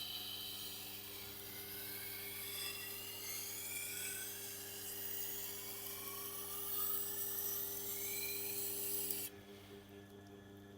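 Tormek wet-grinder wheel grinding the steel edge of a Japanese chef knife: a steady rasping hiss with shifting whining tones as the blade is passed along the stone, over the machine's motor hum. This is the last grinding passes that raise the burr. The grinding stops suddenly about nine seconds in, leaving the motor humming.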